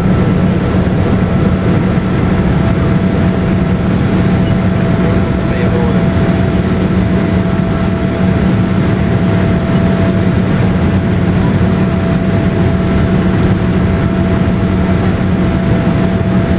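Boeing 787-8's GE GEnx-1B turbofan engines at takeoff thrust during liftoff and initial climb, heard from inside the cabin: a loud, steady noise with a constant low hum and a fainter steady higher tone.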